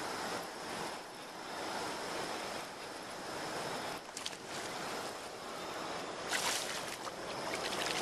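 A hooked fish splashing at the water's surface as it is reeled in, over a steady hiss of wind and lapping water; a brief louder splash comes about six seconds in.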